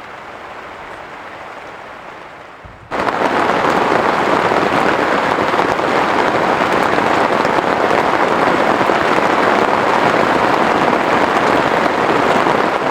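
Steady hiss of rain, which about three seconds in abruptly becomes much louder, dense heavy rain that keeps on evenly.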